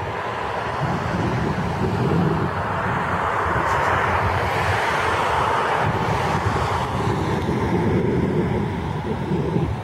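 Thunderstorm outdoors: a steady rushing of rain and wind, with a broad swell that builds and fades in the middle.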